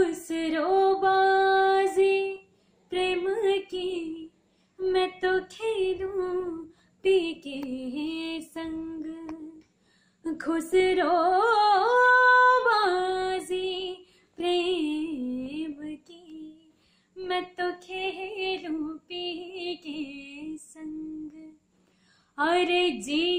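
A woman singing a Sufi kalam solo and unaccompanied, in a wordless opening vocalise: separate phrases of long held notes with wavering, ornamented turns, with short silences between them.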